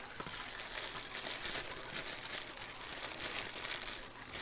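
Small clear plastic bag crinkling as it is handled and opened by hand, with an irregular run of faint crackles.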